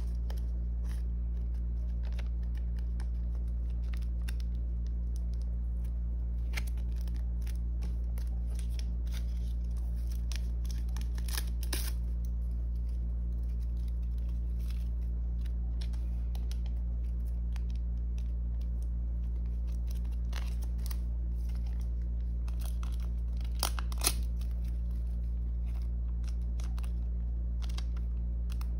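Photocards being handled and slid into clear plastic binder sleeves: scattered small clicks, scrapes and plastic rustles, with a couple of louder taps near the middle and again later, over a steady low hum.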